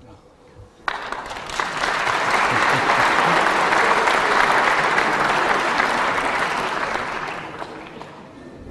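Arena audience at a snooker match applauding, starting abruptly about a second in and dying away near the end.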